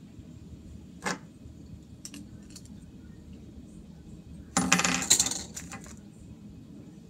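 Small hard Beyblade parts clicking and clinking together in the hands. There is one sharp click about a second in, a few faint ticks, then a loud rattling clatter of metal and plastic pieces about four and a half seconds in.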